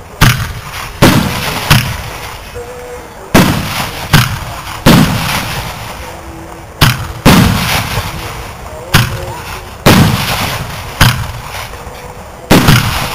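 Aerial fireworks shells bursting one after another: about a dozen loud booms at irregular intervals, each trailing off in a rumbling echo.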